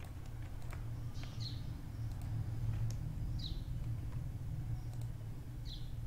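Faint computer keyboard and mouse clicks over a steady low hum, with a short high falling chirp repeated about every two seconds.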